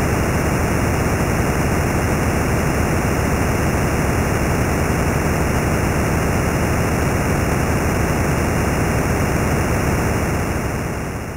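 Steady, even hiss-like noise with no distinct tones or rhythm, fading out in the last second.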